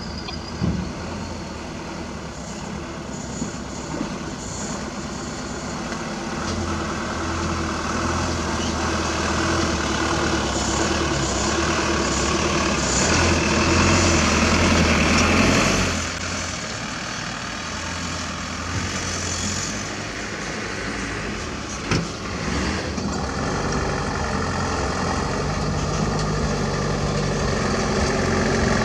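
Diesel dump truck engines running as the trucks drive along a dirt haul road, swelling as one passes close about halfway through and again as another approaches near the end. A single sharp knock about two-thirds of the way through.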